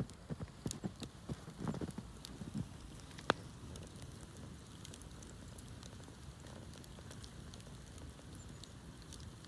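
Wood bonfire crackling with scattered pops and snaps. They are busiest in the first few seconds, with one sharp pop a little over three seconds in, then thin out to occasional ticks over a low steady hiss.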